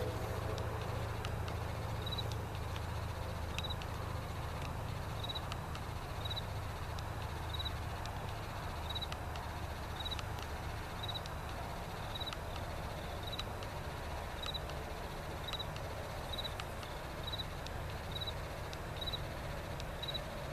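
Steady low rumble of an approaching diesel freight locomotive, with an insect chirping high about once a second over it.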